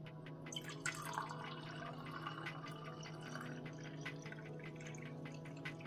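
Sherbet drink poured in a thin stream into a stemmed glass, trickling and splashing with small drips as the glass fills.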